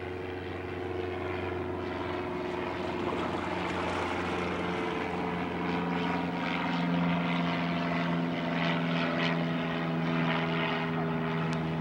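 Propeller aircraft engines droning steadily, a humming tone that grows somewhat louder partway through.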